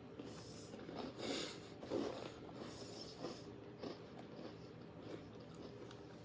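Crunchy chocolate cereal being chewed: a few faint, short crunching sounds, mostly between about one and three and a half seconds in.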